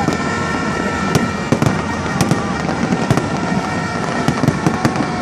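Fireworks display: a dense run of bangs and crackling, with a few steady high tones held over it.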